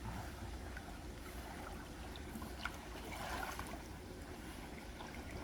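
Mountain stream running: a steady, gentle rush of flowing water with a few faint ticks.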